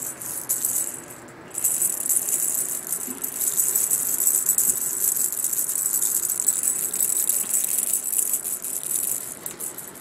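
A cat toy rattling as it is shaken continuously, with a brief break about a second in, dying away near the end.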